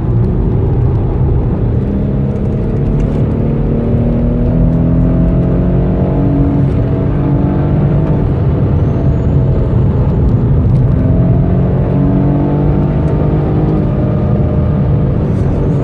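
Car engine heard from inside the cabin, pulling hard at speed on a race track, its pitch climbing in long sweeps and dropping back at gear changes several times, over heavy road and tyre rumble.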